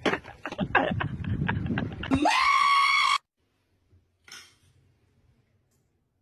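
Wet mud squelching and splattering. It is followed by a loud scream that rises in pitch, holds for about a second, and then cuts off suddenly. After that there is only a faint brief hiss.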